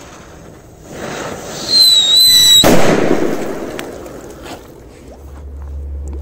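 Firecracker going off in a water-filled hole in ice: a rising hiss with a short high whistle, then one sharp bang about two and a half seconds in that fades over about a second.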